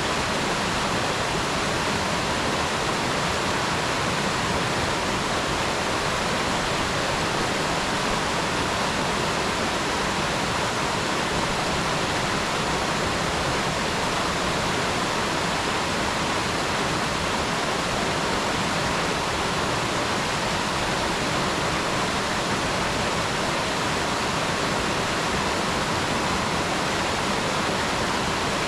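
Mountain stream rushing steadily over rocks, a full, unbroken wash of water noise with no let-up.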